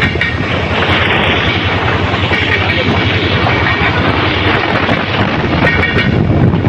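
Diesel-electric locomotive under way, heard from its front end: a steady loud engine drone mixed with rolling wheel-on-rail noise and a rapid flutter.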